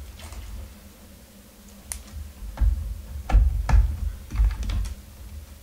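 Plastic clicks and knocks of PCIe power cable connectors being pushed into a GeForce GTX 980 Ti graphics card: a string of sharp clicks with dull thuds, starting about two seconds in and lasting about three seconds.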